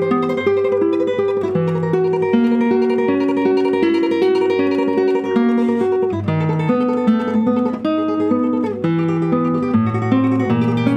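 Solo nylon-string classical guitar playing a tremolo passage: a rapidly repeated high melody line sustained over plucked bass notes that change every half second or so.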